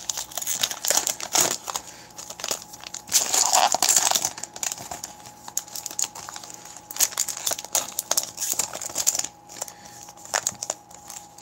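Foil trading-card pack wrapper crinkling and tearing as it is pulled open by hand, in irregular crackly rustles with a louder stretch about three seconds in.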